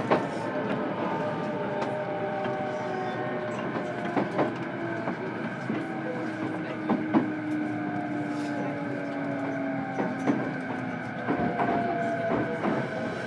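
Cabin running sound of an E233-7000 series electric train recorded in a motor car: steady rumble of the train in motion with the traction motors' whine in several tones sliding slowly lower, and occasional clicks of the wheels over rail joints.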